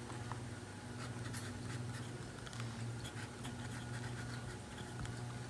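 Medium-nib TWSBI Eco fountain pen writing on small notebook paper: soft, short scratching strokes of the nib, over a steady low hum.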